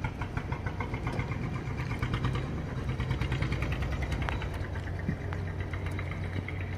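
Engine of a small fishing boat running steadily, its note carrying a fast, even pulse.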